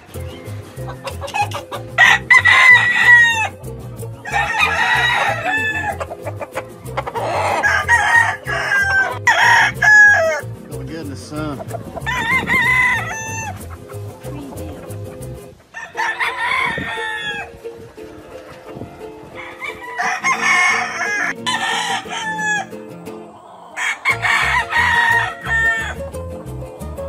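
Gamecock roosters crowing over and over, about eight crows each lasting a second or so, over steady background music.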